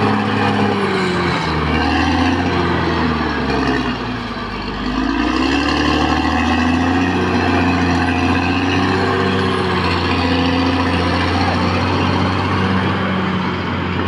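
Caterpillar D6R XL crawler bulldozer's diesel engine running loud under working load. Its pitch sags and the sound dips slightly about four seconds in, then climbs back and holds steady.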